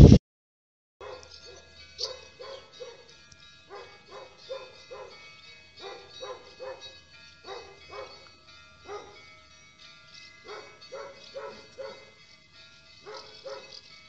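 A dog barking in short runs of two to four barks, joining in with church bells ringing steadily behind it.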